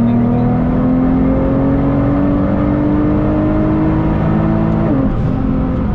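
Nissan GT-R R35's twin-turbo V6 heard from inside the cabin, its note climbing steadily under acceleration and then dropping sharply about five seconds in as the gearbox shifts up, over steady road noise.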